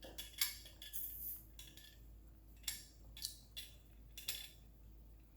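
A few light, separate clinks and knocks of tableware being handled, such as cutlery or a glass jar against a plate or table.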